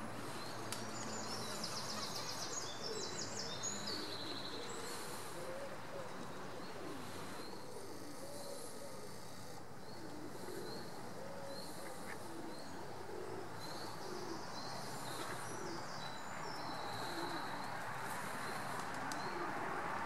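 Feral pigeons cooing over and over, low and wavering, with small birds chirping high above and a steady rush of water underneath.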